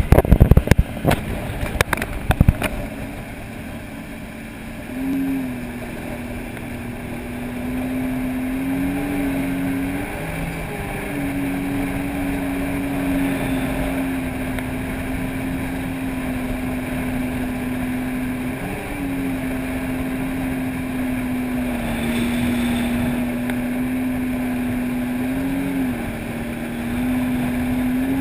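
Personal watercraft engine running steadily at cruising speed. Its drone rises briefly in pitch a few times. A cluster of loud knocks comes in the first couple of seconds.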